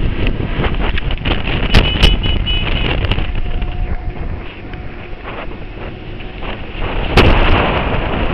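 Wind rushing over the microphone of a camera carried on a moving motorcycle, mixed with road noise. A few sharp thumps break through, two about two seconds in and the loudest near the end.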